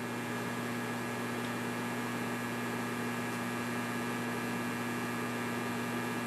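Alpha 9500 HF linear amplifier humming steadily under transmit at about 1,470 watts output: a low mains hum over an even hiss.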